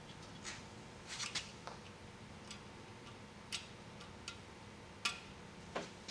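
Scattered short clicks and light taps of small parts and wires being handled, about nine in all at uneven intervals, over a faint steady hum.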